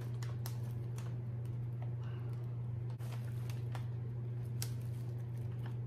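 A steady low hum with faint, irregular clicks and ticks over it.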